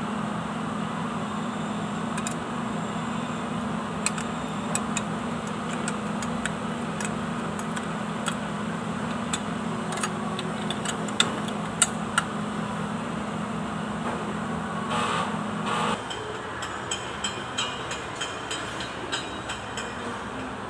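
Steady machine hum that cuts off suddenly about three-quarters of the way through, with scattered light clicks and taps from hands working on a tractor's front axle housing.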